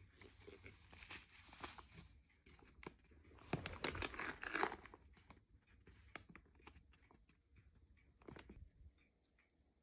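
White foil stand-up pouch crinkling in the hands and being torn open across its top. The loudest tearing comes about three and a half to five seconds in, followed by scattered crinkles and ticks.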